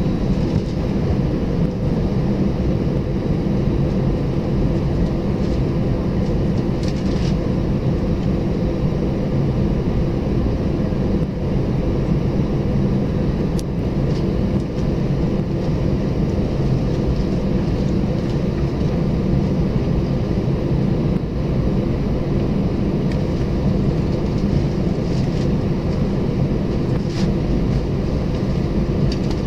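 Airbus A320 cabin noise on the ground with the engines at idle: a steady hum with a few even tones, and an occasional faint click.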